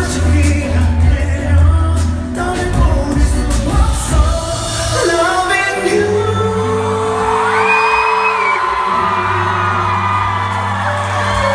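Live pop music with singing, played loud in a large hall. A heavy beat drops out about five seconds in, leaving held chords under a sung line. Audience whoops and shouts are mixed in.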